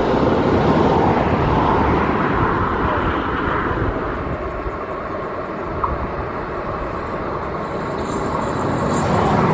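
Rumble and rail noise of a freight train on an electrified line: it eases off in the middle and builds again over the last few seconds as an electric locomotive hauling tank wagons approaches.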